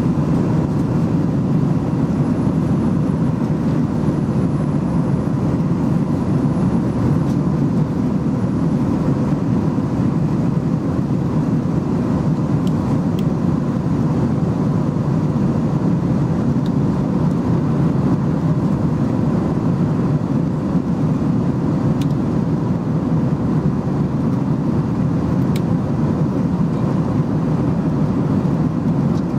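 Steady cabin drone inside an airborne Airbus A321-211: an even rush of engine and airflow noise, heaviest in the low range, with faint steady hums running through it and a few faint ticks.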